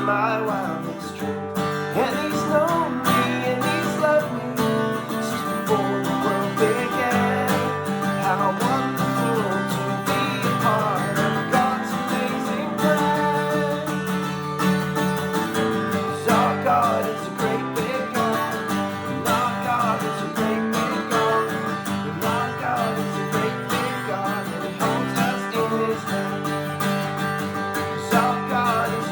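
Acoustic guitar playing a children's worship song, with singing at times.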